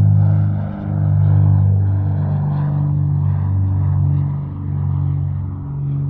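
Propeller aircraft engine droning steadily at a low pitch, with a slight waver and a brief dip about a second in.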